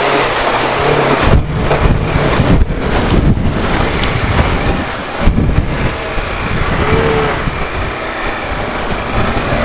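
Bajaj Dominar 400 motorcycle's single-cylinder engine running through a shallow stream crossing and onto the road, with water splashing in the first seconds. Heavy wind buffeting on the microphone covers much of the engine.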